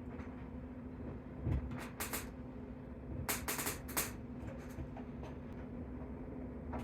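Scattered short clicks and knocks from hands working with floating-shelf hardware and pieces, a cluster of them a little past the middle, over a steady low hum.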